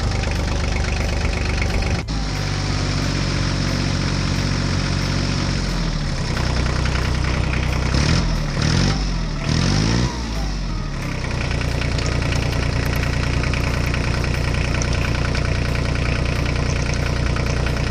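Vehicle engine running steadily, with its pitch swinging up and down a few times around the middle before settling back to a steady run. A single click about two seconds in.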